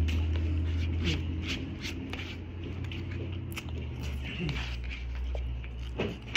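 Close-up eating sounds: chewing and biting with scattered small clicks and scrapes, over a steady low hum.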